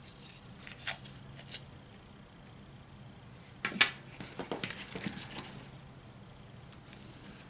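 Small clicks, taps and scrapes of tools and small metal parts being handled while a model locomotive is taken apart. A busier run of sharp clicks comes in the middle, over a faint steady hum.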